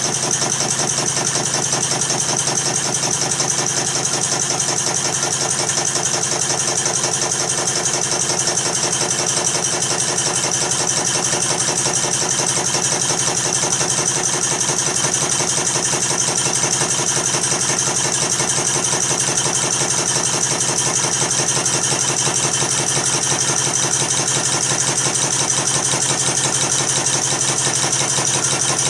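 American Model Quarter Horse model steam engine running at a steady speed, with a fast, even chuffing beat and a constant hiss. It is belt-driving a cast-iron bench grinder's stone wheel.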